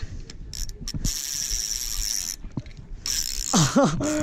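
Spinning reel cranked while fighting a hooked carp: the gears and drag clicking and whirring, with a steady high buzz from about half a second in lasting nearly two seconds. A brief, louder wavering tone comes near the end.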